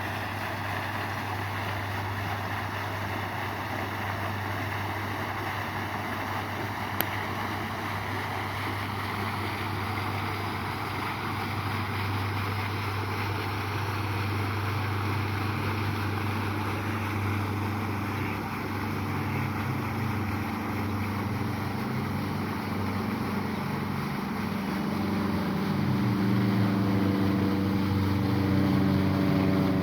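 A motor engine running over a steady rushing noise, its hum growing louder through the last ten seconds or so.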